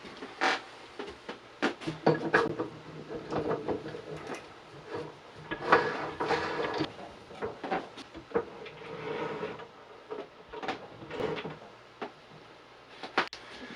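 Objects being handled and set down: irregular knocks and clicks with short stretches of rustling, like things being picked up, moved about and put down on a work surface.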